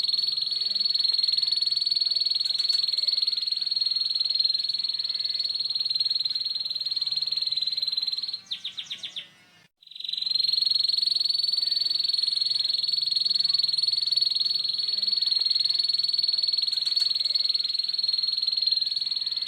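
Domestic canary singing a harsh "ngeriwik" song: a long, unbroken high rattling trill. About halfway through it breaks into a few separate pulses and stops briefly, then the trill starts again.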